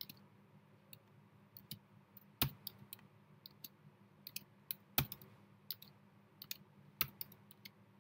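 Computer keyboard typing: irregular key clicks, with three harder keystrokes about two seconds apart.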